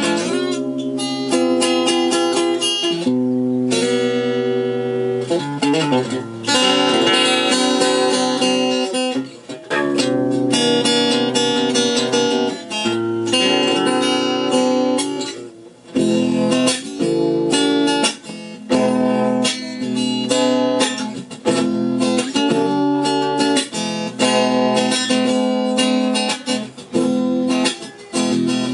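Acoustic guitar music, picked and strummed, playing through the Ciclotron Max Prime H-1400I amplifier head under test.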